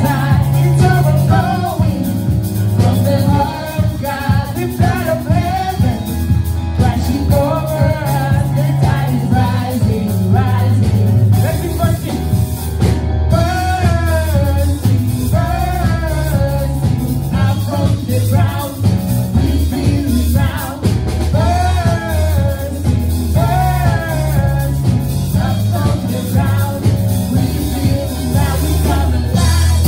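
A worship song: a singer over a full band with drums and a bass line.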